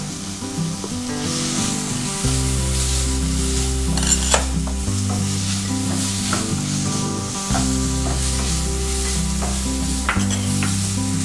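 Chopped onion, tomato and prawns sizzling in a non-stick kadhai, stirred with a spatula that scrapes and taps the pan now and then. Soft background music with slow chord changes plays underneath.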